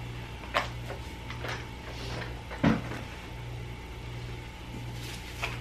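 A plastic tub of sidewalk chalk handled and put back among toys: a few light clicks and one dull thump about two and a half seconds in, over a steady low hum.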